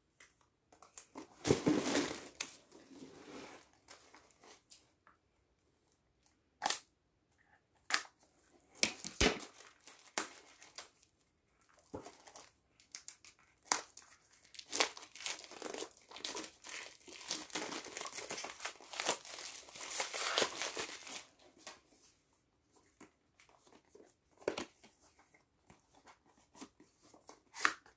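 Clear plastic wrapping crinkling and tearing in irregular bursts as a small boxed replica wand is unwrapped by hand. There are a few sharp clicks and taps in between.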